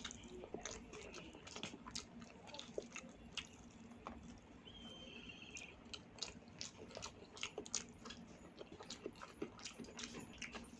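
Close-miked chewing and wet mouth clicks of someone eating a meal of rice and curries, soft and irregular, with now and then a light crunch.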